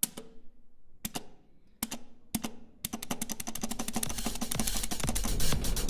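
Sharp clicks: four single ones spaced about half a second to a second apart, then from about halfway a fast, quickening clatter of clicks that grows steadily louder.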